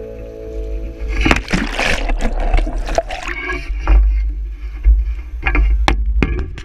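Sea water splashing and swishing around a harpoon pole as its tip dips into and lifts out of the sea, with irregular sharp splashes and knocks. Wind rumbles on the pole-mounted camera's microphone throughout.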